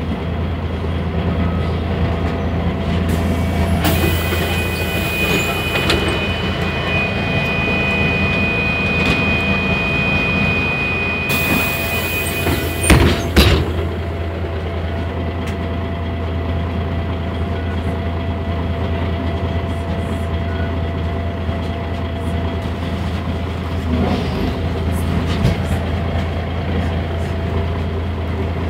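Mercedes-Benz O345 Conecto city bus heard from inside the cabin, its diesel engine running with a steady low hum. About four seconds in a hiss starts with a steady high tone over it, lasting nearly ten seconds. It ends with a few sharp knocks, and the engine hum carries on.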